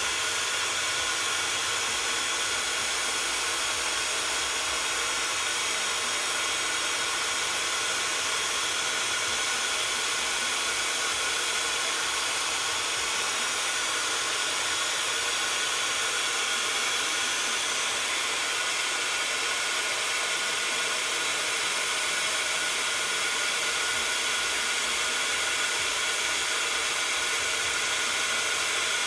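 Embossing heat gun blowing steadily, a fan's even rush with a faint whine, as it melts embossing powder on stamped cardstock.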